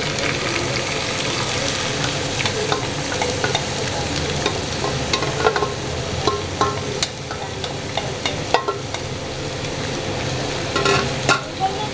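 Finely chopped vegetables (cabbage, carrots, capsicum, beans) frying in hot oil in a frying pan, sizzling steadily, while a spatula scrapes and taps against the pan as they are tipped in and stirred. The scrapes and taps are scattered throughout, with a quick cluster near the end.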